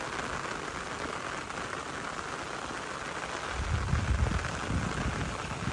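Steady rain falling as the storm lets up, with a low rumble for a couple of seconds from about three and a half seconds in.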